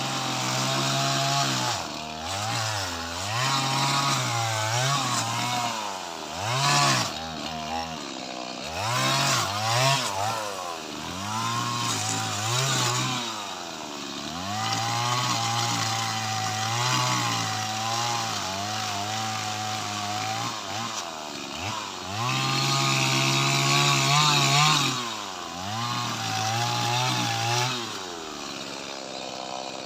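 Small Stihl MS two-stroke chainsaw cutting leucaena wood, its engine speed dipping and climbing back again and again as the chain bites in and frees. Near the end it drops back to a lower, quieter run.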